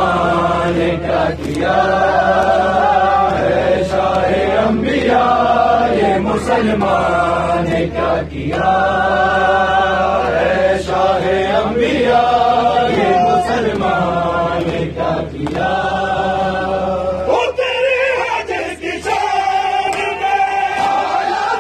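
Men's voices chanting an Urdu noha (Shia mourning lament) in unison phrases, with sharp strokes of chest-beating (matam) roughly once a second.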